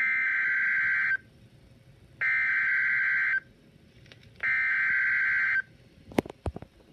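Emergency Alert System SAME header: three harsh, buzzing data bursts of about a second each, a second apart, over weather radio, the digital code that opens a warning alert. A few sharp clicks follow near the end.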